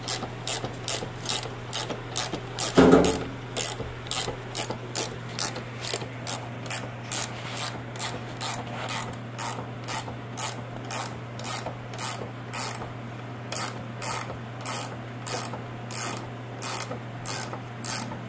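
Ratcheting wrench clicking in a steady rhythm, about two to three clicks a second, as the freed nut is run off the stud of a shock's top hat held in a bench vise. One louder knock comes about three seconds in.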